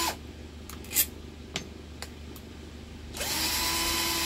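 Cordless drill-driver with a Phillips bit backing screws out of an electric fan's motor housing: its steady whine cuts off at the start. A few light clicks and taps follow, then the drill runs again at the same steady pitch from about three seconds in.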